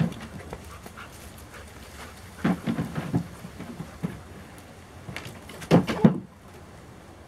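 Clusters of thumps and scuffs as a Labrador puppy lands on and jumps off a low plastic training platform and moves on concrete. The loudest cluster comes at about six seconds, then the sound drops away abruptly.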